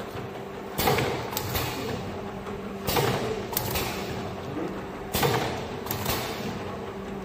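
Automatic tapered-cup labeling machine running, with a steady motor hum from its conveyor and label drive. Three times, about every two seconds, there is a sharp knock with a short rush of noise and a few lighter clicks as the cup-positioning cylinder and labeling head cycle on each cup.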